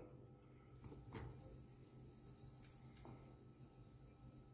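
Near silence: room tone with a low hum, a few faint clicks, and a faint steady high-pitched tone from about a second in.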